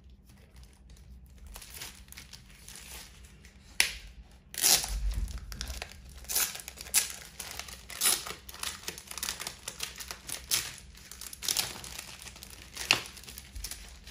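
Plastic packaging crinkling and rustling as it is handled and an item is pulled out of it, in irregular bursts. It starts faint and gets louder about four to five seconds in.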